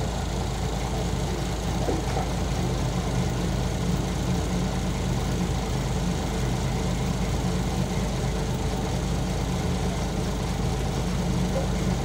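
Toyota forklift engine idling steadily, a low, even hum.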